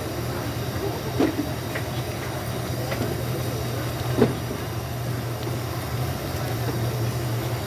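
Stir-frying at a noodle stall: a steady low rumble with a few metal clinks, and two louder clanks about a second in and about four seconds in.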